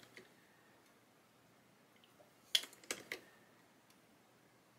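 Three short, sharp clicks of small plastic model-kit parts being handled and seated into the hull, about two and a half to three seconds in; otherwise quiet.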